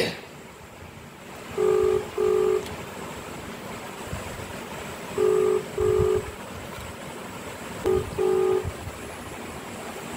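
Ringback tone of an outgoing phone video call: a low steady tone sounding in pairs of short rings. Three double rings come a few seconds apart while the call rings unanswered.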